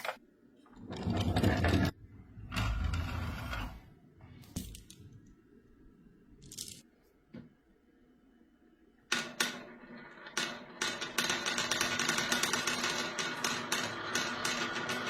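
Glass marbles clattering against hard plastic toy pieces: a few separate rattling bursts, then from about nine seconds in a dense, continuous run of rapid clicks as many marbles roll and knock together.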